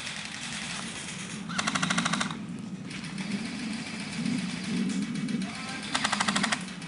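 Airsoft rifle fired on full auto: two short bursts of rapid, evenly spaced shots, the first about a second and a half in and the second near the end.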